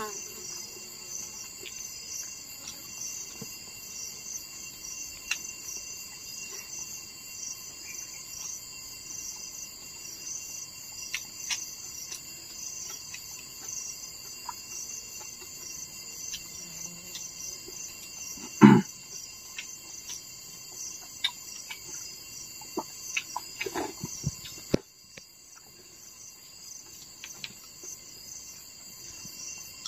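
A steady, high, shrill insect chorus with a fine pulsing texture, and scattered sharp knocks over it. The loudest is a single heavy thump about two-thirds of the way through, followed a few seconds later by a cluster of knocks.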